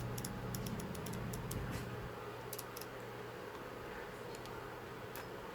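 Quick, light clicks and ticks of small parts and tools being handled, a rapid run of them in the first two seconds, a couple more a little later and one near the end, over a steady low electrical hum.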